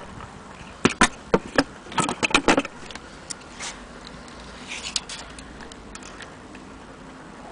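Handling noise from metal gramophone parts on a table: a quick series of about nine sharp clicks and knocks from about one to two and a half seconds in, then a few fainter clicks around five seconds.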